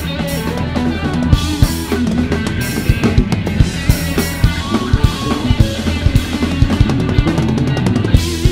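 Rock band playing live: a drum kit with kick drum, snare and cymbals keeping a steady beat under electric guitar and electric bass guitar.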